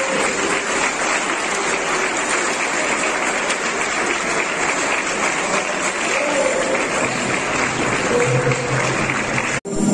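Audience applauding steadily, cut off abruptly near the end.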